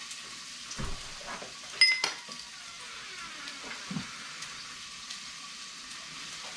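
Salmon fillets frying in hot oil in a skillet, with a steady sizzle. There is a sharp, ringing metal clink of a utensil or pan just under two seconds in, and a few light knocks.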